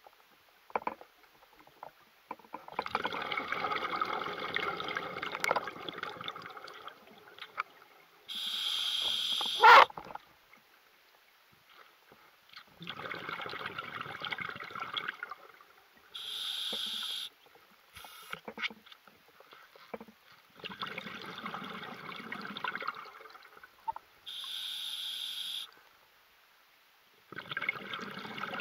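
Scuba diver breathing underwater through a regulator: a short hiss of each inhale through the demand valve, then a few seconds of exhaust bubbles bubbling out, repeating about every seven to eight seconds. A sharp click at the end of the first inhale is the loudest sound.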